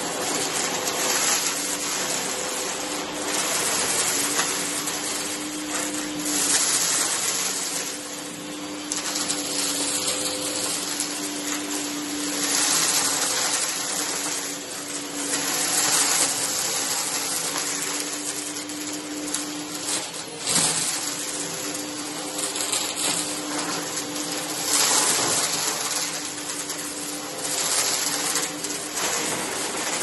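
Bagless upright vacuum cleaner running with a steady motor hum and rushing suction, sucking up confetti, sequins and glitter from carpet. The rush swells and eases as it is pushed back and forth, with crackling as debris rattles up into the bin.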